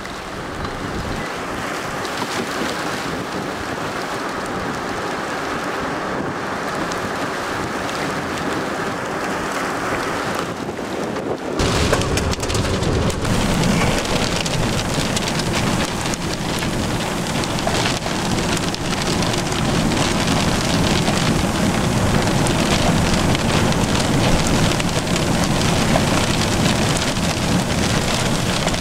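Steady rain in a thunderstorm, the noise suddenly growing louder and deeper about twelve seconds in.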